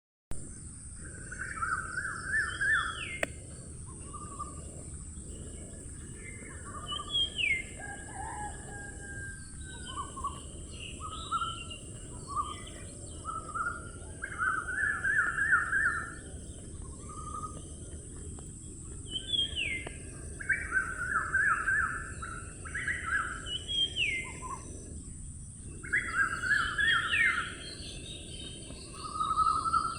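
Songbirds singing and chirping, with short phrases of quick repeated notes and rising slurs coming every few seconds, over a steady high hiss and low outdoor background noise.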